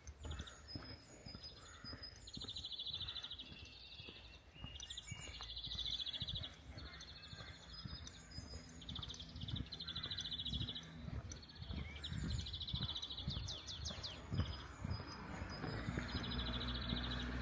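Small songbirds singing, repeating short rapid trills and thin high notes, under the crunch of a walker's footsteps. A low steady engine hum comes in about six seconds in and again near the end.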